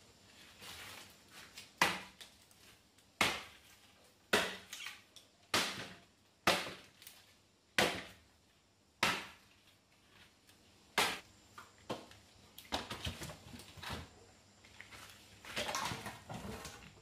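Machete chopping a dry wooden branch: about eight sharp chops, a little over a second apart. In the last few seconds come rustling and knocking of branches being handled and dragged.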